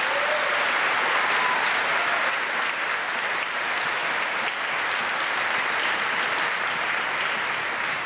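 Large crowd applauding steadily at the close of a speech.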